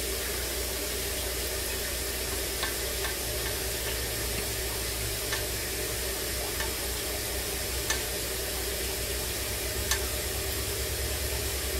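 Melted beeswax-and-oil salve poured in a thin stream from a glass jug into shallow metal tins, heard only as a steady low hiss with a faint hum beneath. A few faint light ticks come at intervals of two or three seconds.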